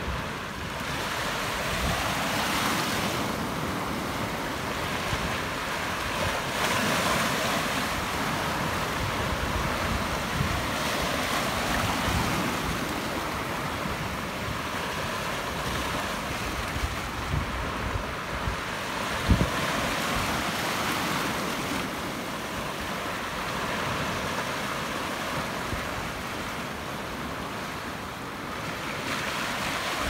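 Small sea waves washing over a flat rock shelf and draining back, a steady wash that swells and eases every few seconds. Wind buffets the microphone now and then, with one brief low thump about two-thirds of the way through.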